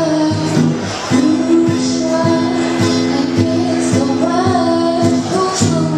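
Acoustic guitar strummed in steady chords, with a voice singing a melody over it.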